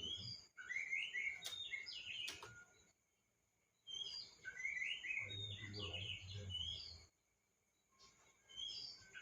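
Male Oriental magpie-robin (kacer) singing a territorial song of quick, varied whistled and chirping notes, in three bouts: the first about half a second in, the second about four seconds in, the third near the end. Two sharp clicks sound during the first bout.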